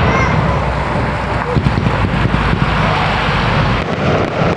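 Firework display going off: a dense, continuous crackling of many small bursts over a low rumble.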